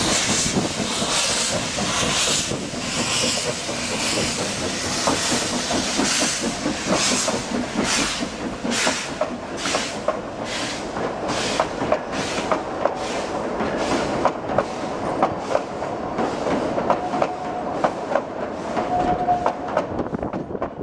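Narrow-gauge steam train on the 3 ft gauge Isle of Man Steam Railway pulling its coaches past: hissing steam chuffs about once a second at first, then the coach wheels clicking over rail joints in a steady rhythm. A brief squeal near the end.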